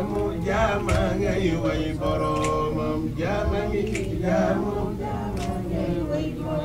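A man singing a Wolof religious praise chant unaccompanied into a microphone, drawing out long, wavering melismatic notes with no clear words.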